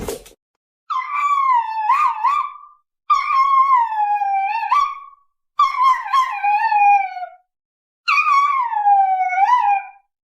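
A dog howling four times in long drawn-out howls of about two seconds each, with short silent gaps between. Each howl starts high and slides down in pitch, with a quick wobble upward near its end.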